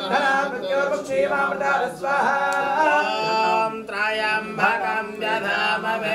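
Male voices chanting Vedic Sanskrit mantras in a continuous melodic recitation.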